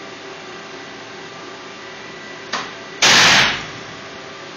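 Loud bang of an aluminium foil vaporizing as a capacitor bank discharges about 8 kJ through it, firing a collision weld of aluminium onto stainless steel. The bang comes about three seconds in, lasts about half a second and dies away quickly; a short sharp click comes half a second before it, over a steady electrical hum.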